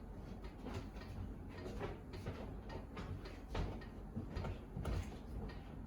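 Irregular light knocks and bumps of a freed wooden window sash being handled and moved.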